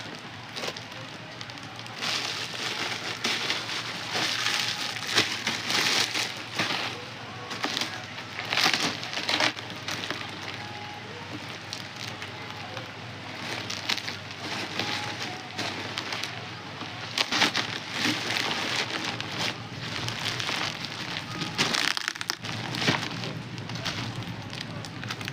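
Plastic packaging rustling and crinkling in irregular bursts as parcels are handled and opened.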